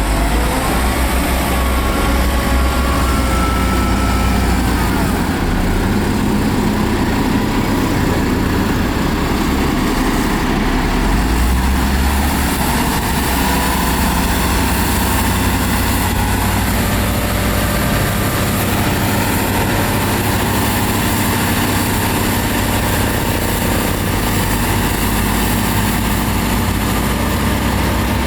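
Heavy diesel earthmoving machinery running steadily, a continuous low engine rumble that shifts a little in pitch as the machine works.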